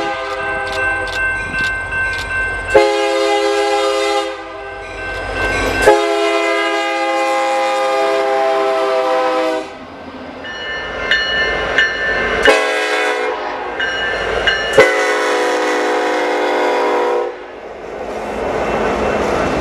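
Diesel locomotive multi-chime air horns sounding about six long blasts in a row, each a steady chord of several notes, cutting sharply from one horn to the next. Near the end the horns give way to the rolling noise of a train passing.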